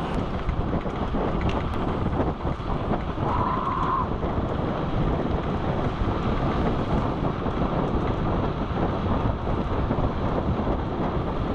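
Wind buffeting an action camera's microphone as a BMX bike is ridden fast down an asphalt path, a steady loud rush with tyre noise from the pavement underneath.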